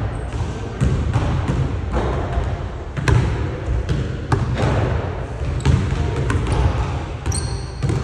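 Basketballs bouncing on a hardwood gym floor, several players dribbling and shooting at once, so the thuds land at irregular moments and echo around the large hall. A couple of high sneaker squeaks come near the end.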